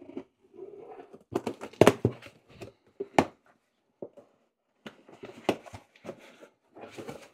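Folding knife slitting the packing tape on a cardboard shipping box, and the cardboard flaps being pulled open. There are a few sharp knocks in the first half and scratchy cardboard rustling and scraping near the end.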